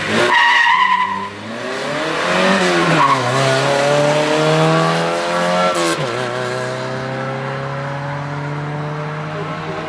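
Rally car's engine accelerating hard through the gears, with a short tyre squeal at the start. The note climbs, drops at a gear change about three seconds in, and climbs again. From about six seconds it runs at a steadier, slowly falling note as the car drives away.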